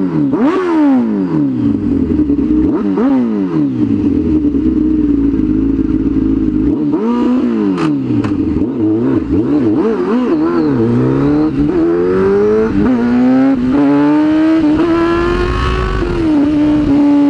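Sport motorcycle engine revved hard several times while standing still, revving freely in neutral, each rev rising sharply and falling back. From about eleven seconds in the bike pulls away and accelerates through the gears, the pitch climbing with each gear before settling into a steady cruise.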